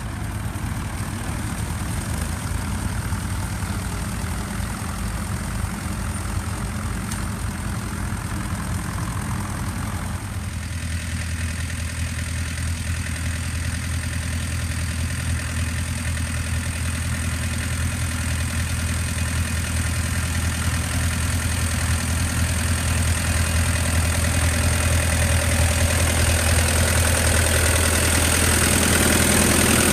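Diesel tractor engines running steadily under load while plowing. After a cut about ten seconds in, a single red McCormick IHC D-436 tractor's diesel runs at steady working speed and grows louder as it comes near.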